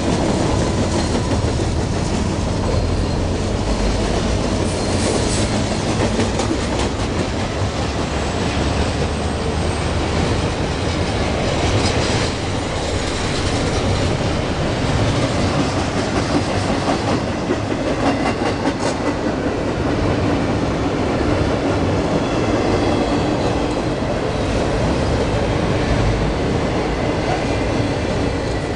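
CSX freight train's cars rolling steadily past close by, ending with double-stack container cars: a continuous rumble of steel wheels on the rails with clickety-clack over the rail joints. Faint high wheel squeal comes and goes.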